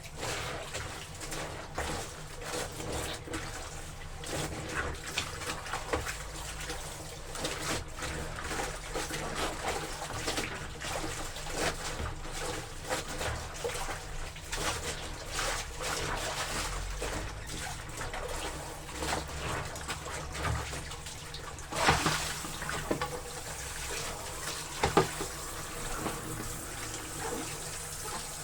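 Clothes being washed by hand or foot in water: irregular splashing and sloshing, with two louder splashes about three-quarters of the way through.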